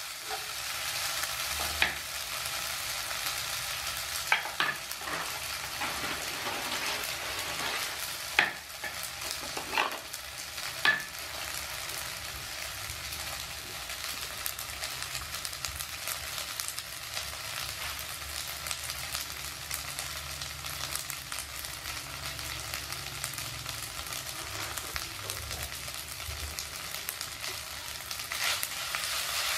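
Yakisoba noodles and sliced sausage sizzling steadily in a nonstick frying pan. In the first ten seconds or so the metal spatula stirs them, knocking against the pan a few times.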